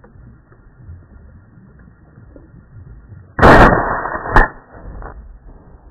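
Two shotgun shots about a second apart, the first ringing on for most of a second after the blast.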